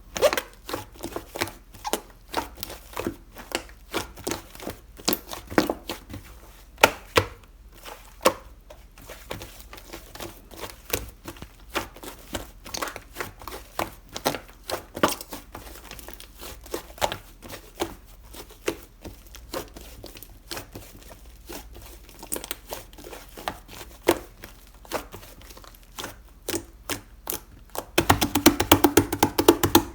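Strawberry cream slime being squished and pressed by hand, giving irregular sticky clicks and small air-pocket pops. Near the end there is a louder, quicker run of crackling.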